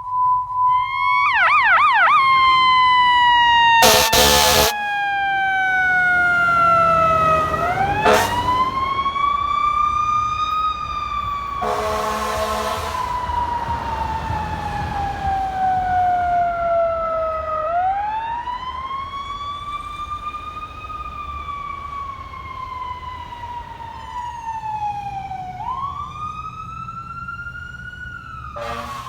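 Fire engine's electronic siren in a slow wail, pitch sweeping up and down, after a brief fast warble about a second in. Air-horn blasts sound about four seconds in, again around twelve seconds, and at the very end.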